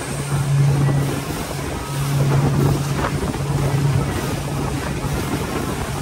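Small open motorboat running at speed: a steady engine drone that swells and fades, with wind buffeting the microphone and water rushing past the hull.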